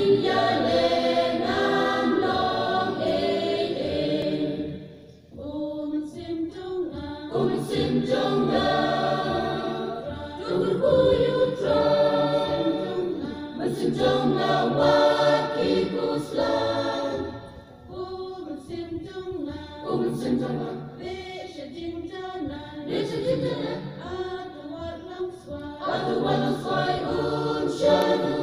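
A choir singing in long phrases, with short breaks between them about five seconds in and again past the middle.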